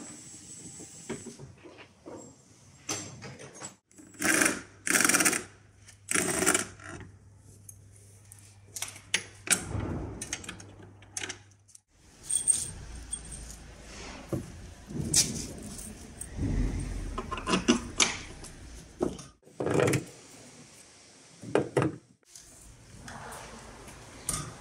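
Irregular clinks, knocks and short rustling sounds of hands-on work with parts and tools, with a faint low hum from about four to twelve seconds in.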